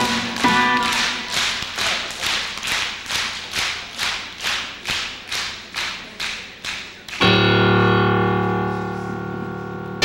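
Audience clapping in unison, about three claps a second and growing slightly fainter. About seven seconds in, the clapping stops as a sustained instrumental chord comes in and slowly fades.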